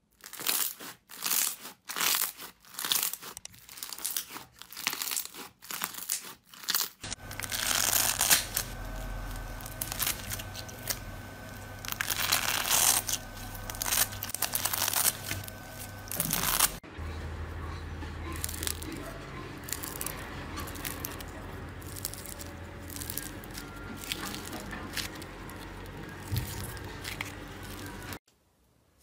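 Slime being pressed by hand, giving a quick run of sharp pops and crackles. Then scissors cut through a crunchy orange sponge-like block with crackly snips over a steady low hum. Then softer squishing and clicking as hands squeeze a soft pink slime.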